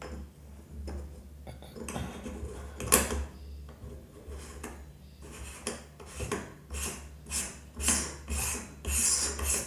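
Hands fitting and twisting a part onto the front of a camera lens on a camera rig: rubbing, scraping and small clicks of plastic and metal. There is one sharp click about three seconds in, a run of rubbing strokes near the end, and a low steady hum underneath.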